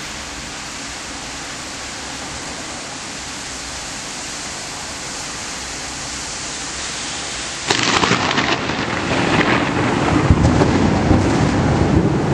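Steady hiss of rain, then about two-thirds of the way through a sudden loud crack of thunder that rolls on as a heavy, uneven rumble over the downpour.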